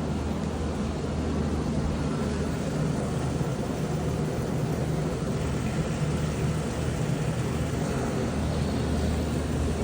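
Steady low hum and rumble of a vehicle in motion.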